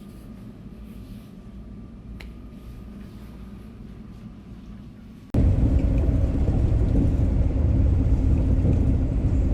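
Low, steady rumble of a moving vehicle, which jumps abruptly much louder a little over five seconds in and stays loud.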